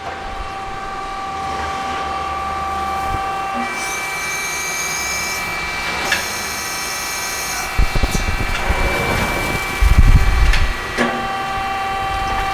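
Donewell hydraulic CNC press brake running idle: a steady tonal machine hum that shifts pitch about four seconds in. A high whine comes in two stretches of about two seconds each as the back gauge axes drive to their next position. Low rumbling knocks are heard about eight to eleven seconds in.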